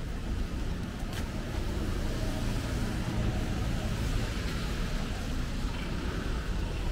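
Steady hiss of rain and wet street, with the low rumble of a vehicle running on the wet road.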